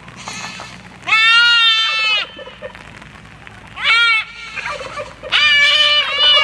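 Goats bleating: three calls, a long one about a second in, a short one near the middle, and another long one near the end.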